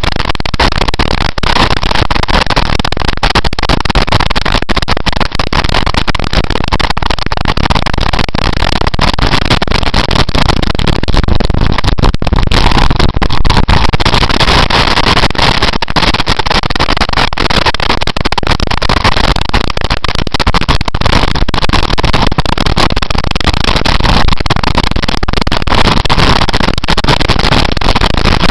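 Loud, steady rush of wind over the microphone of a camera on a motorcycle ridden at speed, with the bike's running engine mixed in beneath it.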